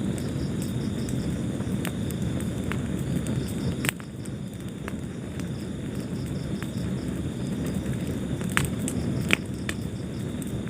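Wood fire burning in a fireplace: a steady low rumble of flames with scattered sharp crackles and pops, the loudest pop about four seconds in and two more near the end.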